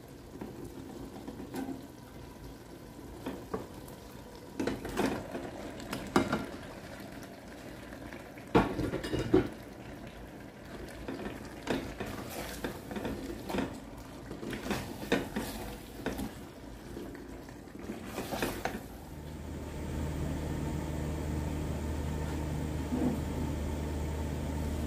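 Raw chicken pieces dropped and pressed into a stainless steel pot of wet marinade, with a slotted spoon knocking and scraping against the pot in irregular clanks. About 19 seconds in, this gives way to a steady low hum from a gas stove heating a pot of water that is starting to boil.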